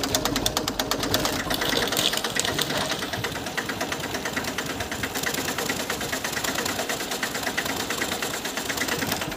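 A 1973 Yugoslav-made tractor's engine running at idle, its exhaust beating out rapid, even pulses into a balloon held over the upright exhaust pipe.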